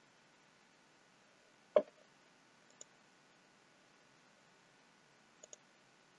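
Computer mouse clicks over a faint steady hiss: one sharp click about two seconds in, the loudest, a fainter click a second later, and a quick double click near the end.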